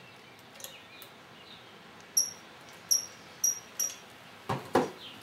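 Four short, high-pitched metallic clinks about half a second apart, then two heavier knocks near the end, the loudest sounds: starter clutch parts being handled and fitted against a motorcycle engine's crankcase.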